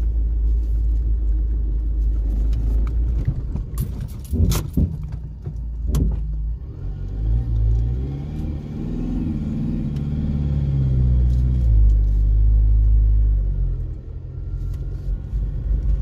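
Car engine and road noise heard from inside the cabin while driving. The engine note rises and then falls again between about seven and twelve seconds in. There are a few sharp clicks and rattles about four to six seconds in.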